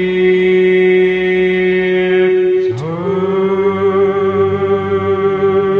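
Karaoke duet of a musical-theatre song over its backing track: a long held sung note, then a slide up into a new sustained note with vibrato about three seconds in.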